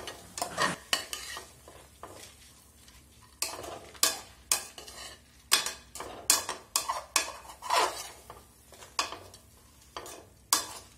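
Slotted steel spatula stirring and scraping minced mutton and roasted gram around an aluminium pressure pan in irregular strokes, about two a second, over a faint sizzle of the sauté. The stirring pauses for about a second and a half about two seconds in.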